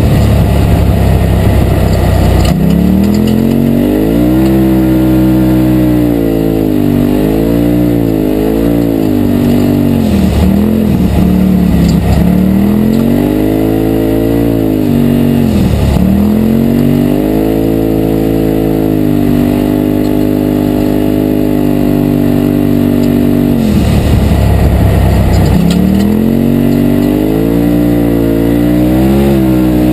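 2017 Polaris RZR Turbo side-by-side's turbocharged twin-cylinder engine, heard from inside the open cab, running under way. Its pitch rises and falls as the driver speeds up and lets off, dipping sharply about a third of the way in and around halfway. It holds steady for a while, then sits low with a deep rumble about three-quarters of the way through before climbing again.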